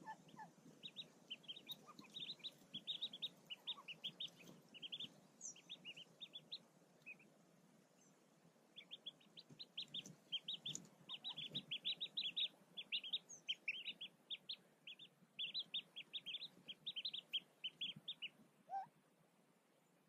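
Newly hatched mallard ducklings peeping from under the brooding hen: rapid runs of short high peeps, several a second, broken by a pause of about two seconds partway through.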